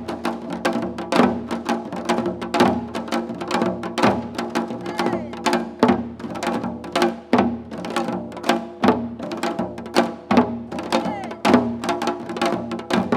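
Korean janggu hourglass drums played in a nongak seoljanggu performance: a fast, driving rhythm of dense drum strikes with steady ringing underneath.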